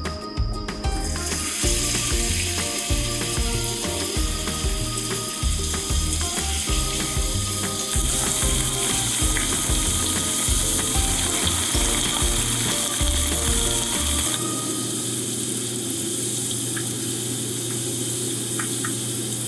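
Vegetable kakiage fritters sizzling in hot frying oil. Background music with a steady bass beat plays over it and stops about three-quarters of the way through.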